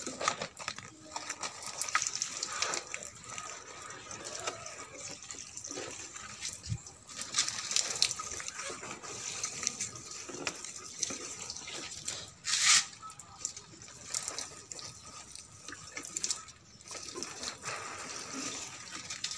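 Liquid fertilizer being poured from a container onto the soil of potted plants: an uneven splashing and trickling, with one brief louder rush about two-thirds of the way through.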